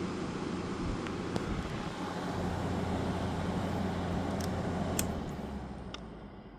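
GE 5050 BTU window air conditioner running its blower fan on the low setting: a steady whoosh of air over a low hum, with a few light clicks, dying down near the end.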